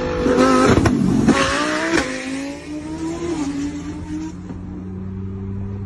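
Supercar engine revving hard at speed, with three sharp cracks in the first two seconds, then settling into a steady drone.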